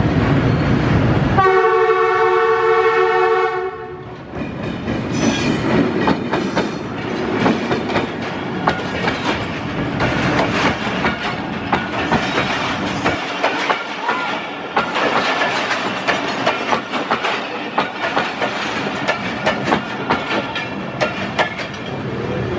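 ZCU-20 diesel-electric locomotive running loud as it comes by close, then sounding its horn once for about two seconds. The passenger coaches then roll past with a steady clickety-clack of wheels over the rail joints, growing thinner as the train pulls away.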